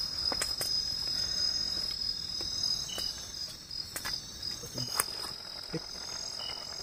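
Steady high-pitched chorus of insects, with a few sharp crackles and snaps from the wood-and-bamboo cooking fire, the strongest about five seconds in.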